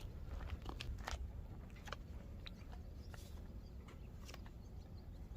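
Faint outdoor background: a low steady rumble with scattered light clicks and taps.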